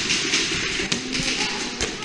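Airsoft guns firing: a dense run of sharp taps.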